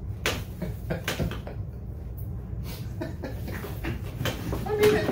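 Cardboard box being opened and rummaged through: flaps pulled back, with cardboard scraping, rustling and knocking in short irregular bursts.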